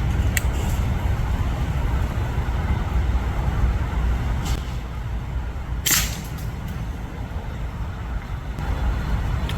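A single sharp shot from a Brocock (BRK) Ghost PCP air rifle about six seconds in, over a steady low rumble.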